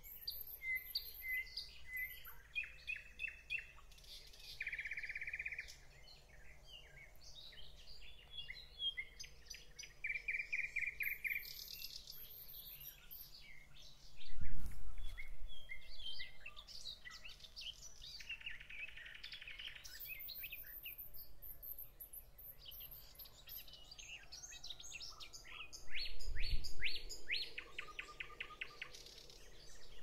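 Several songbirds singing together in a spring dawn chorus, with trills, chirps and very high thin calls overlapping throughout. Two brief low rumbles, about halfway through and near the end, are the loudest sounds.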